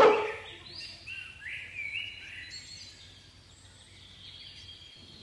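A dog's bark ends right at the start, then birds chirp in a run of short high notes that thin out after about three seconds, over faint background noise.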